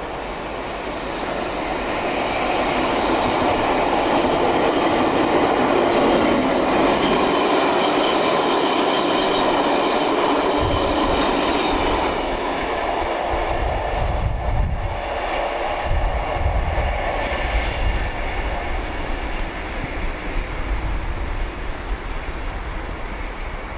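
Class 60 diesel locomotive hauling a train of oil tank wagons, passing at speed: a rising rumble, loudest a few seconds in, with a high whine over it. It then fades as the wagons roll away, with low irregular thumps.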